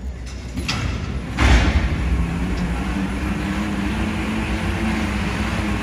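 A team of draft horses hauling a dynamometer pulling truck through dirt, with the truck running steadily under load. A sudden loud surge comes about a second and a half in, as the pull gets going.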